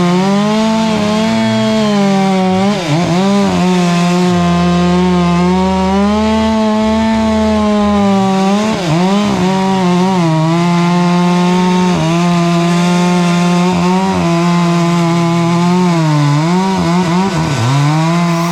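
Husqvarna 500i two-stroke chainsaw running at full throttle while cutting through a tree trunk. Its high, steady engine note dips briefly several times as the chain loads up in the wood, then recovers.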